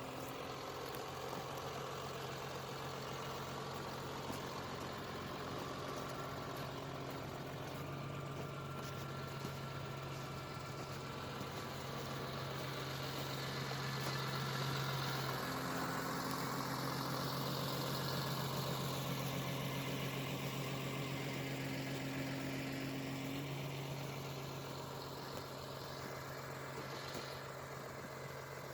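Diesel engine of a Ponsse forest machine running steadily with a low hum, growing louder for several seconds around the middle and then easing back.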